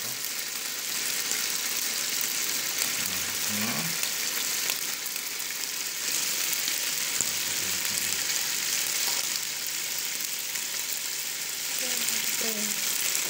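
Chicken satay skewers sizzling on a Teflon-coated round grill pan over a gas flame: a steady, high frying hiss.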